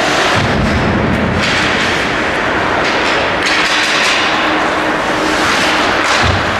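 Ice hockey play: skates scraping the ice, with sticks and the puck knocking against the ice and boards. The sound is a loud, dense noise with several sharp knocks.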